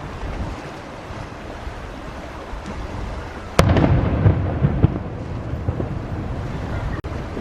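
Aerial fireworks shells bursting: a rolling rumble of reports, then a loud boom about halfway through followed by a spell of crackling pops.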